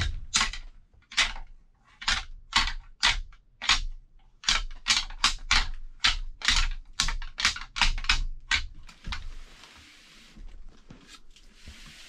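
Rattling antlers, synthetic black ones, clacked together in a rattling sequence: about twenty sharp clacks at roughly two a second, then a couple of brief scraping hisses near the end. It is the sound of two bucks sparring, made to call a buck in.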